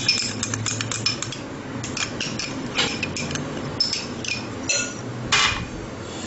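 Metal spoon clinking and scraping against a bowl while garlic-ginger paste is scraped out of it: a quick series of light clinks, then a longer scrape a little after five seconds in.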